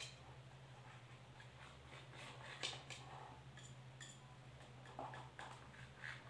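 Faint, scattered ticks and light scrapes of a knife cutting steamed besan dhokla in a steel tin, the blade knocking against the tin now and then.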